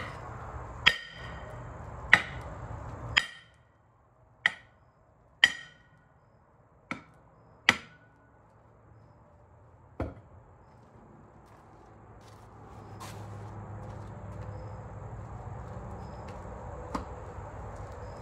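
A hammer striking a semi truck's wheel-end part to drive it into place: about nine sharp, ringing blows roughly a second apart, stopping about ten seconds in.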